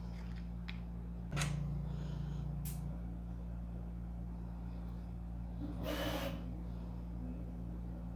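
3D printer running a print, its stepper motors humming steadily in a low, pulsing tone that changes pitch briefly about a second and a half in. A couple of sharp clicks of small plastic parts being handled, and a short rustle about six seconds in.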